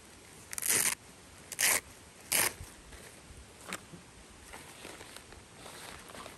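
A zipper pulled in three quick, short strokes, followed by faint rustling.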